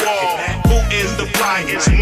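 Hip hop music: a rapped vocal over a beat with heavy bass kicks.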